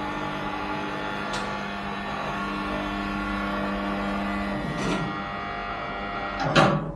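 Electric-hydraulic motorcycle lift table's motor running steadily as the lift lowers. The low part of the hum stops about two-thirds of the way through, with a couple of clicks and a louder knock near the end.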